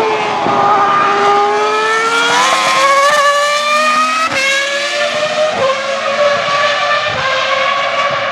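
A high-revving racing car engine at speed: its pitch dips, then climbs with short breaks at gear changes about two, four and five and a half seconds in, then holds fairly steady.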